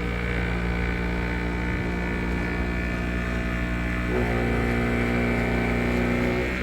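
Electric mechanical polisher running steadily on a headlight lens, its motor note shifting about four seconds in as the pressure on the pad changes.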